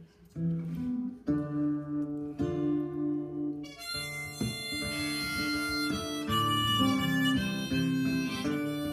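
Acoustic guitar picking an instrumental intro, with a neck-rack harmonica joining about four seconds in and playing over it.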